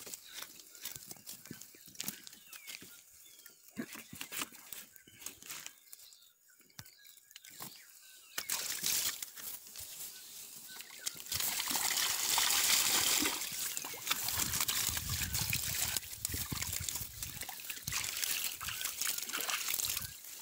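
Wet nylon cast net handled in shallow water: small clicks and rustles of mesh and line, then from about eight seconds in a louder, steady sound of water sloshing and trickling.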